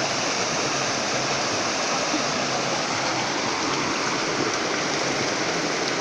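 Small spring-fed forest stream splashing over rocks in a shallow cascade: a steady rushing of water.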